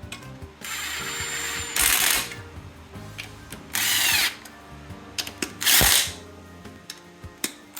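Several short bursts of a hand-held power or air tool, each lasting under a second or so, over steady background music.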